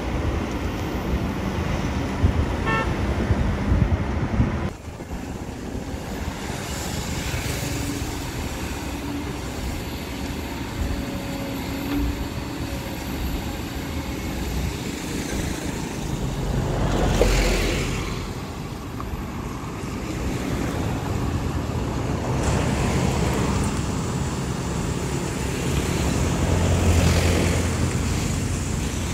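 Diesel engine of a Kobelco SK200 hydraulic excavator running steadily under digging load, mixed with passing road traffic. The sound changes abruptly about five seconds in, and a passing vehicle swells and fades a little past halfway through.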